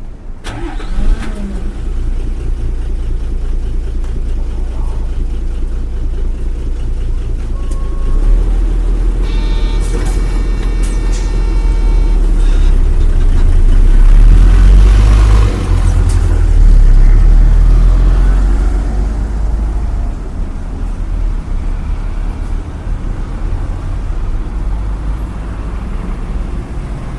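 Bus engine running with a heavy low rumble, growing louder and peaking about halfway through before easing off. A brief high-pitched signal sounds about ten seconds in.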